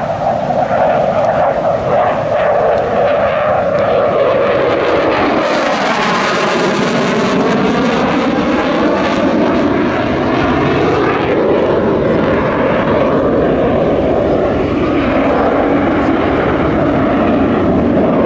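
Loud, continuous jet noise from a Dassault Rafale C fighter's twin Snecma M88 turbofans as it manoeuvres in a display. The hiss brightens about five seconds in, and a sweeping tone falls and then rises through the middle.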